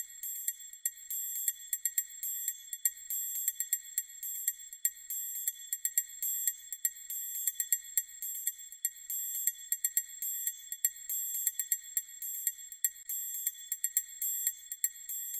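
High-pitched tinkling, bell-like tones, with many rapid clicks running through them.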